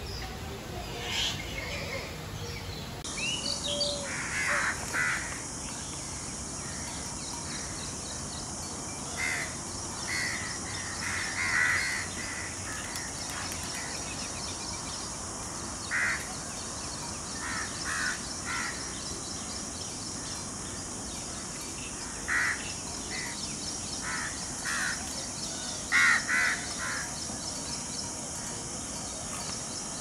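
Birds calling in short, repeated calls that come in clusters every few seconds. A steady high hiss sets in about three seconds in and carries on under the calls.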